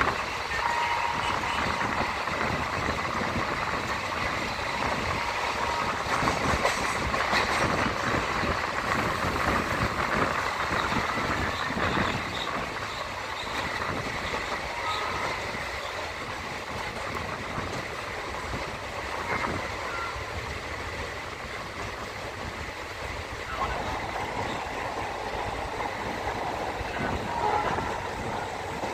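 Passenger express train running along the track: a steady noise of wheels on the rails.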